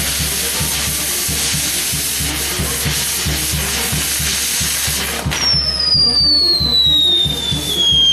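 Fireworks on a castillo tower hissing and spraying sparks, over music with a steady drum beat. About five seconds in the hiss drops away and a long whistle starts, falling slowly in pitch.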